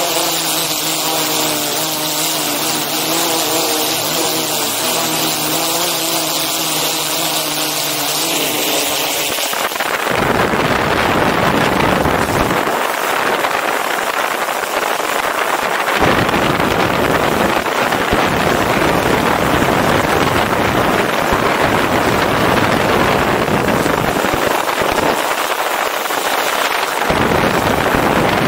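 DJI Inspire 2 drone's propellers running with a steady multi-tone whine. About ten seconds in, this abruptly gives way to a loud rushing noise of wind over the microphone on the drone, with a low rumble coming and going in gusts.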